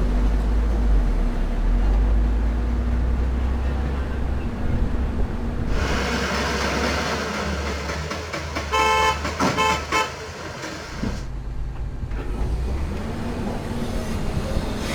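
Heavy diesel engines of an excavator and dump trucks running with a deep, steady rumble. About nine seconds in, a vehicle horn gives a few short toots.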